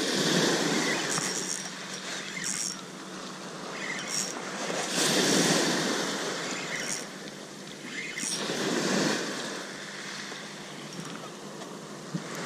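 Small waves breaking on the beach, the wash surging three times, about every four seconds, and fading between.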